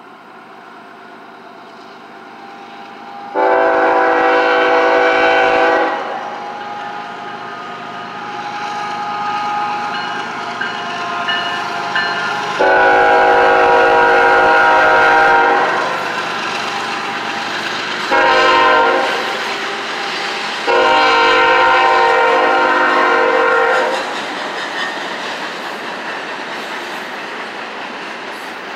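CSX ES44AC diesel locomotive sounding its horn in the long-long-short-long grade-crossing signal as it approaches and passes, over the rising rumble of the train. Near the end the freight cars roll past with their wheels clicking over the rail joints.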